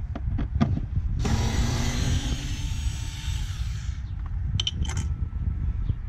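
Cordless power screwdriver running for about three seconds, spinning out a Torx bolt on the air box. There are a few sharp clicks before it and a small cluster of clicks after it, all over a steady low rumble.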